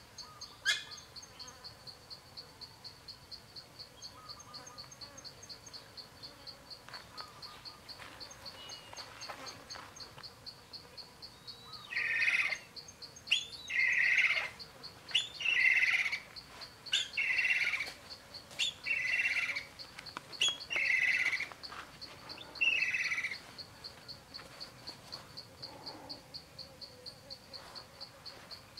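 A bird calls seven times in a regular series about halfway in, each call about a second long and roughly one and a half seconds apart. Under it runs a steady, fast, high-pitched insect trill of about five pulses a second.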